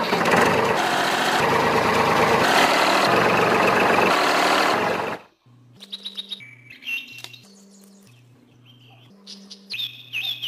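A loud, steady engine noise, like an added tractor-engine sound effect, runs for about five seconds and then cuts off suddenly. After it comes a quiet, repeating low tune with a few bird chirps over it.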